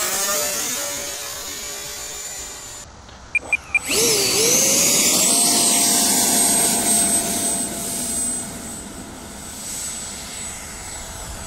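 Electric ducted fan of a Freewing 70mm Yak-130 RC jet: a passing whine fading away, then, after a break, three short beeps and the fan spooling up with a sharply rising whine. It settles into a steady high whine as the jet runs down the strip and takes off, slowly growing fainter.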